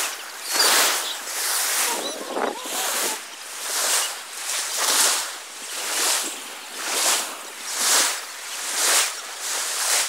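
Shallow sea water swishing and splashing in a steady rhythm, swelling and fading about once a second, with faint voices of bathers.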